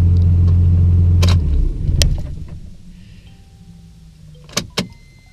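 1997 Dodge Ram's 5.9 Cummins 12-valve diesel idling just under 1,000 rpm, heard from inside the cab. It is shut off about a second and a half in and runs down to a stop. Two sharp clicks come near the end.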